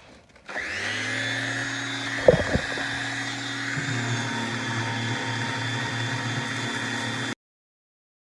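Parkside electric sander with a Velcro sanding pad switched on and running steadily, sanding a steel car door panel. A couple of sharp knocks about two seconds in, the tone deepens a little about four seconds in, and the sound cuts off abruptly near the end.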